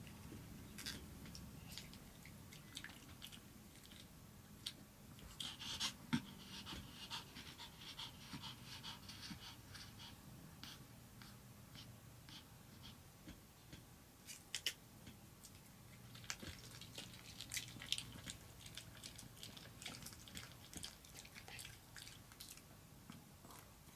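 Long-haired Chihuahua panting softly while begging for a treat, in two bouts of breathy hiss. Faint scattered clicks run throughout.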